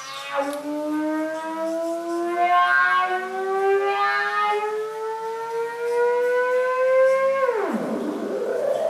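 A single held synthesizer tone gliding slowly upward in pitch as its knobs are turned, growing brighter twice along the way, then sweeping sharply down in pitch near the end.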